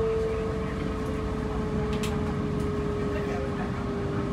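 Running noise inside a passenger train: a steady low rumble with a whine that slowly falls in pitch, and a short click about two seconds in.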